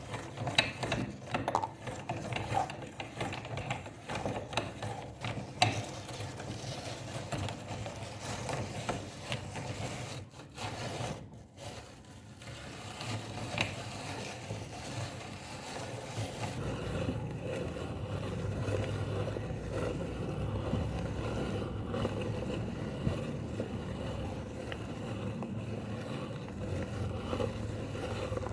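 Meat grinder grinding Oreo cookies: mechanical crunching and scraping with many separate clicks at first, turning into a steadier, continuous grinding from about halfway.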